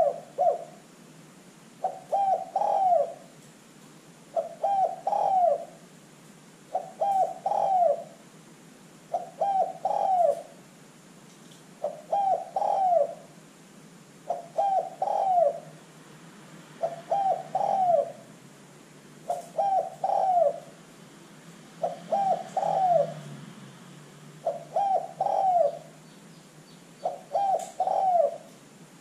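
Spotted dove cooing: a phrase of three notes, two short and a longer falling last note, repeated evenly about every two and a half seconds.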